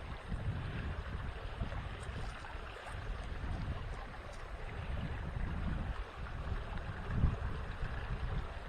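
Wind buffeting the microphone in uneven gusts, over the steady rush of a small creek's running water.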